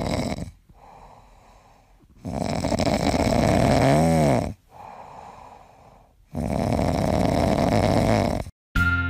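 Domestic cat snoring in its sleep: three long noisy snores, each with a quieter breath between, about four seconds apart. The middle snore ends in a brief squeaky tone that rises and falls. A music jingle starts near the end.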